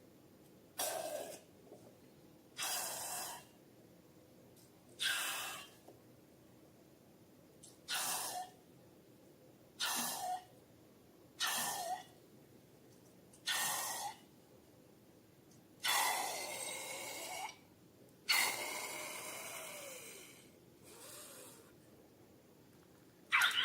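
About a dozen short, hissing rushes of air with a squeaky, sputtering edge, one every second or two, the two longest about two thirds of the way through.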